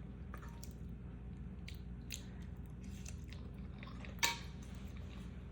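A person chewing food close to the microphone: soft wet mouth sounds and small clicks, with one louder click about four seconds in, over a faint low hum.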